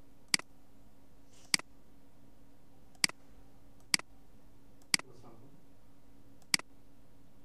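Six sharp computer mouse-button clicks, irregularly spaced about one to one and a half seconds apart, over a faint steady hum.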